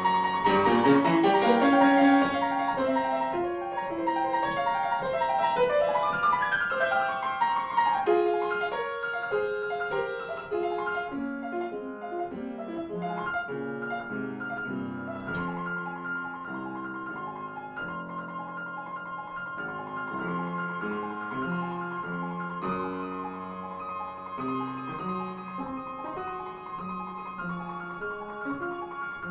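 Background music: a classical-style piano piece of many distinct notes, louder for the first few seconds, then softer and steadier.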